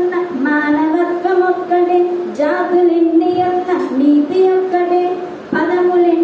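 A single high voice singing a Telugu padyam (verse) in a slow chant-like melody, holding long notes with short breaks for breath.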